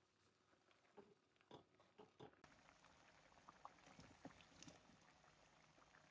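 Faint irregular popping of chicken curry gravy bubbling as it simmers in a pan. About halfway through, cubed raw potatoes tipped from a strainer drop into the bubbling sauce with soft plops.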